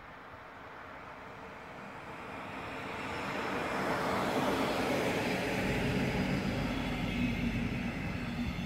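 Electric passenger train, a DB electric locomotive hauling double-deck coaches, passing close by: a rush of wheels on rails that builds as it approaches and is loudest from about four seconds in, with a low rumble and a steady hum as the coaches roll past.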